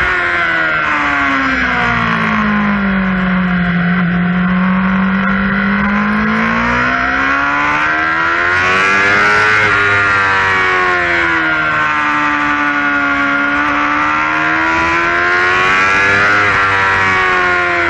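Yamaha R6 sport bike's inline-four engine heard from on board at speed, with wind rush. The revs fall over the first few seconds, climb to a high peak about nine seconds in, dip, climb again near sixteen seconds and fall back.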